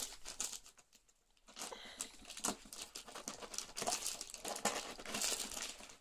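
Cardboard laptop box being turned and slid around on plastic bags and bubble wrap: irregular crinkling of plastic with small scrapes and knocks of cardboard, pausing briefly about a second in.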